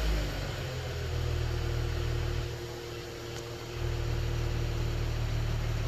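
2018 Lexus IS 350 F Sport's 3.5-litre V6 idling steadily at the exhaust, the engine warm.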